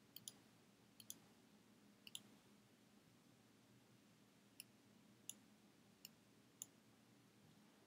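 Faint computer mouse clicks, about ten spread over several seconds, some in quick pairs, over quiet room hiss.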